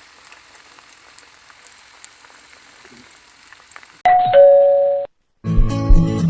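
Faint hiss with small crackles, then a loud two-note ding-dong chime, high then lower, like a doorbell, about four seconds in. After a brief silence a guitar-led song starts near the end.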